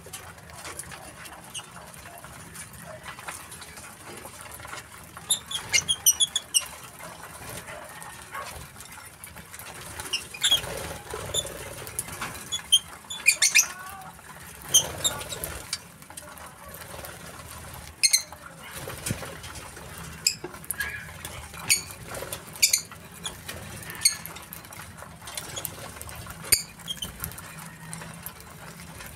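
A mixed flock of lovebirds, Fischer's and masked, giving short, sharp, high-pitched chirps in irregular scattered bursts, with occasional wing flutters.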